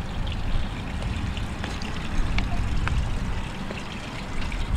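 Light breeze rumbling on the microphone, with a few faint clicks.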